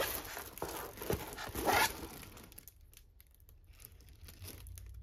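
Clear plastic film on a diamond-painting canvas crinkling as the canvas is handled, loudest in the first two seconds, then dying down to faint rustles.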